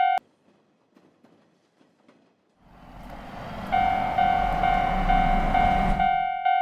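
Japanese railroad crossing alarm bell ("kan-kan") ringing, cut off suddenly just after the start; a couple of seconds of near quiet with faint ticks follow. Then a train's rumble swells up and the crossing bell starts again about a second later, clanging about twice a second, and the train noise stops shortly before the end while the bell keeps ringing.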